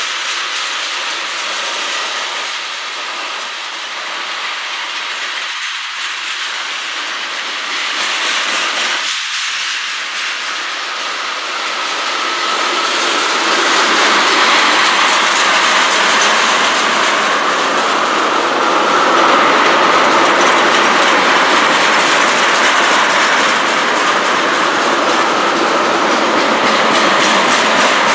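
Freight train of tank cars rolling past: a steady rush of steel wheels on rail, with the wheels clicking over rail joints. It grows louder about halfway through.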